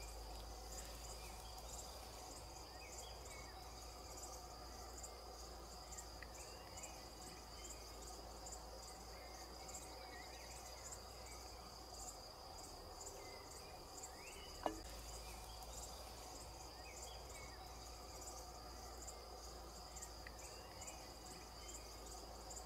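Meadow insects chirping continuously: a high, steady trill with a quick, evenly repeating pulse, under a faint low hum. One sharp click stands out about fifteen seconds in.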